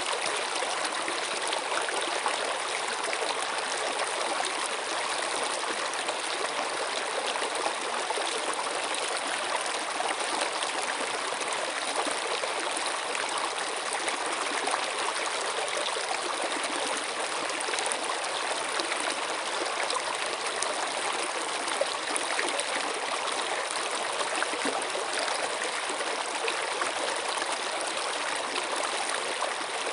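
Flowing water from a stream or small waterfall: a steady, even rush and trickle with no pauses.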